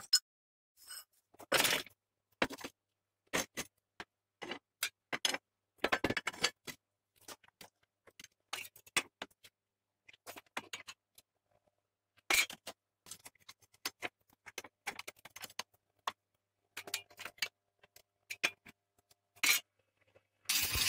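Cut steel channel pieces being handled, measured and set down on a steel workbench: scattered knocks, clinks and scrapes of metal on metal with short quiet gaps between. A louder, continuous noise starts just at the end.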